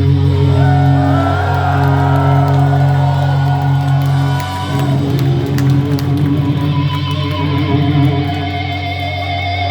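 Live metal band's distorted electric guitars and bass holding a long ringing chord, with wavering, bending feedback tones sliding above it and little drumming.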